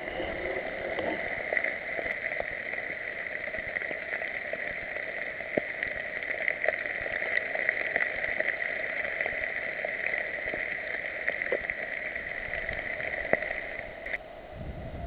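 Steady muffled rushing noise from a moving camera in its housing, with scattered light knocks and rustles as it travels fast over leaf-covered forest ground. The sound changes abruptly about fourteen seconds in.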